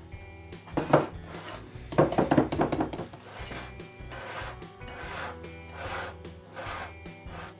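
Wire whisk scraping and swishing against a glass bowl in repeated, irregular strokes as meringue is folded gently into chocolate batter.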